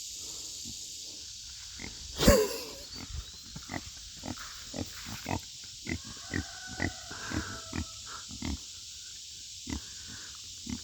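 Pigs at the water, with one loud grunt about two seconds in, then a run of short wet sounds, about two a second, from drinking and lapping at the waterer.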